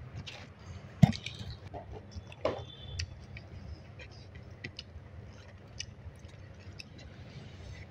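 Eating sounds: chewing rice and curry, with scattered small clicks and a sharper tap about a second in.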